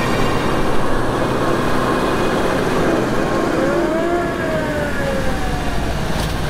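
Vintage fire truck driving past with its siren giving a rising then slowly falling wail about halfway through, over the steady engine and tyre noise of classic cars passing close by.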